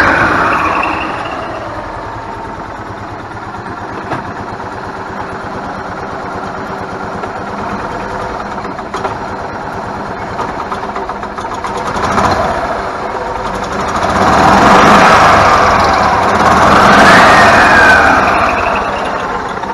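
Club Car gas golf cart engine running again after its faulty rev limiter box was replaced, restoring spark. It drops back from a rev, runs steadily, then revs up and falls back about three times.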